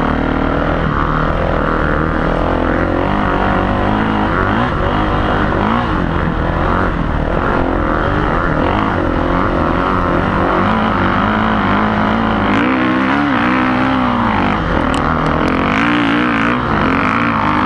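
Dirt bike engine running under riding load on a dirt trail, the revs rising and falling as the throttle changes.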